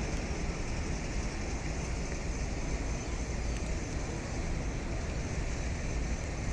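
Steady city traffic noise: a continuous low rumble of road vehicles with no single event standing out.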